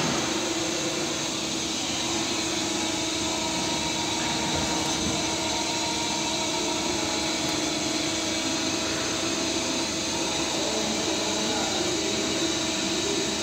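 2006 Mazak Quick Turn Nexus 350M CNC lathe running: a steady mechanical whir over hiss, with a constant whine that does not change in pitch.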